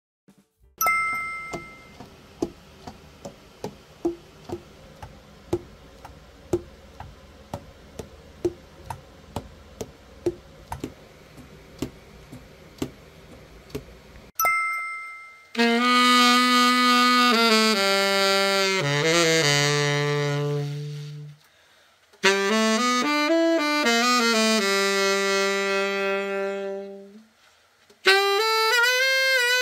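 Tenor saxophone (a Julius SX-90R) play-tested after a full overhaul: three phrases of long held notes with short breaks between them, filling the second half. Before it, faint irregular clicks, opened and closed by a short two-tone ding.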